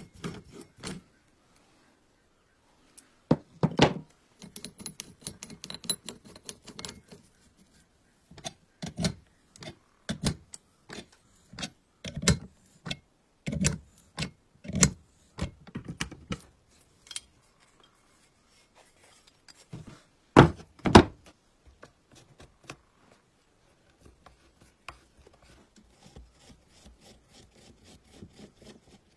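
Irregular knocks, clicks and short scrapes of tools and metal parts being handled while an old household sewing machine is worked on. The loudest sounds are two sharp knocks in quick succession about two-thirds of the way through.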